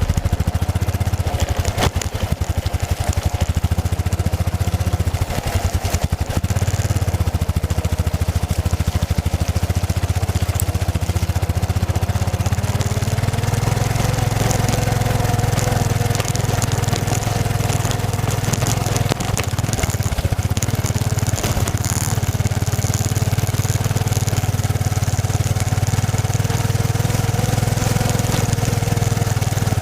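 Yamaha XT660Z Ténéré's single-cylinder four-stroke engine running steadily while riding, over steady wind and road hiss. The engine note rises a little about 13 seconds in and eases off near the end.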